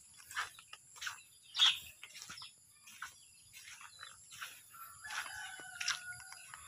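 A rooster crows once, a held call starting about five seconds in, over scattered short clicks and rustles.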